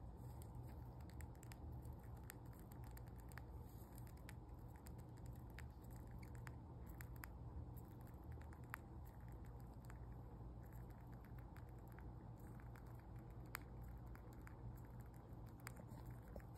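Faint, irregular small clicks of a hamster nibbling a strand of salmon shred held in its paws, over a low steady hum.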